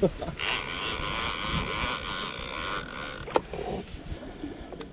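Lever-drag conventional fishing reel's drag giving a steady high-pitched whine for about two and a half seconds as a hooked white sturgeon pulls line off it. A couple of sharp clicks from the reel follow.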